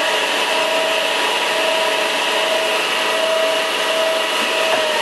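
Arrow Matsuda cam-operated semi-automatic lathe running, a steady mechanical whir with a constant whine over it.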